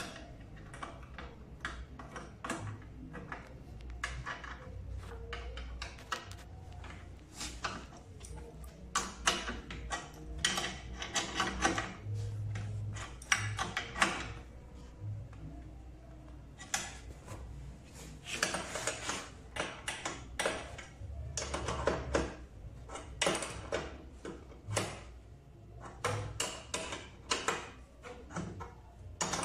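Irregular metal clicks, clinks and knocks of a hand tool working the screws that hold a barber chair's metal footrest, as they are tightened down hard.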